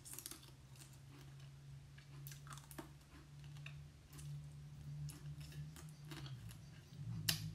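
Close-up mouth sounds of eating crab cooked in coconut milk: soft chewing and lip smacking with scattered small clicks as the meat is picked from the shell and sucked off the fingers, the sharpest click near the end. A low steady hum runs underneath.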